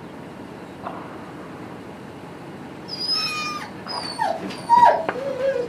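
Doberman whining: a run of high whimpers starting about three seconds in, several dropping in pitch. The dog is eager to go at the muskrat it has just killed.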